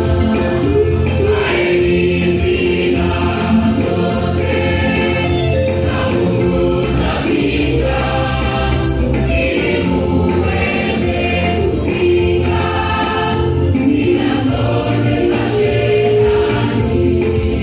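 Gospel music with a choir singing over a steady band accompaniment.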